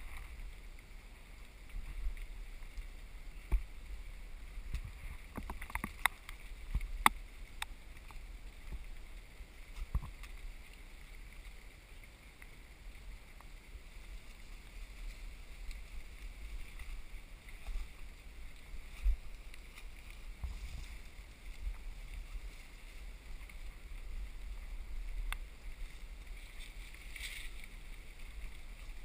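Footsteps and camera-handling noise while walking a trail: scattered sharp clicks and knocks over a low rumble of wind on the microphone.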